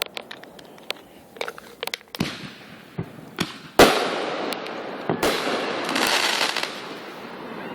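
Fireworks going off: a string of sharp pops and bangs, with the loudest bang about four seconds in, followed by a few seconds of dense crackling.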